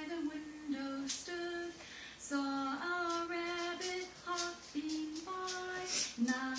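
A woman singing a slow, simple tune without words, one held note after another with short pauses between phrases.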